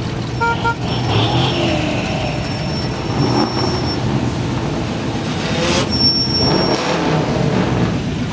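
Several classic Chevy C10 pickup engines rumbling in slow cruise traffic, with a short horn toot about half a second in.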